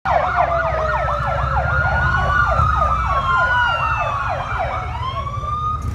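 Several emergency-vehicle sirens sounding together: one in a fast yelp, about three to four sweeps a second, over slower wails. The yelp stops near the end while a wail rises again.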